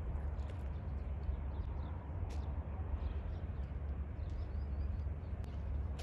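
Outdoor ambience: a steady low rumble under an even background hiss, with a few faint, short, high bird chirps.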